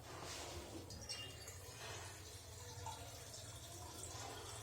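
Water being poured faintly into whisked curd to thin it into buttermilk.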